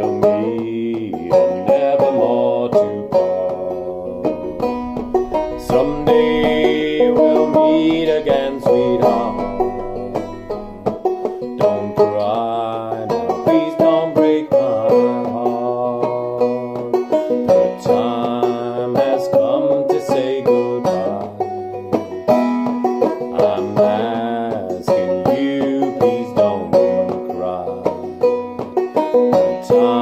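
A banjo played clawhammer style in sawmill tuning, pitched lower than the usual sawmill tuning, with a man singing along in stretches.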